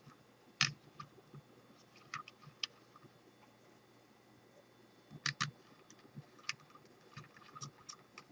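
Faint, scattered small clicks and taps of flashlight bulbs being taken out of and fitted back into their sockets in a wooden box, with a sharper double click about five seconds in.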